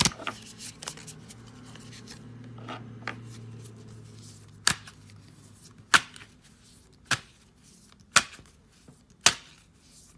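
A deck of oracle cards being shuffled by hand. Light rustling comes first, then from about halfway in a run of sharp card snaps, roughly one a second.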